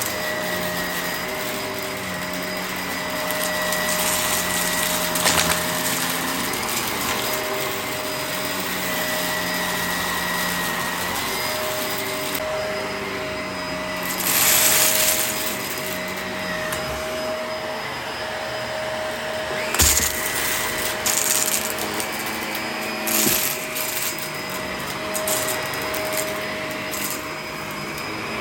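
Vacuum cleaner running steadily with a constant motor whine. Around the middle comes a brief louder rattling hiss, followed by several sharp clicks and crackles.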